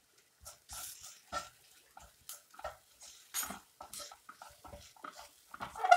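A spatula or spoon stirring masala in a frying pan, with a run of short, irregular scrapes and knocks against the pan about two a second.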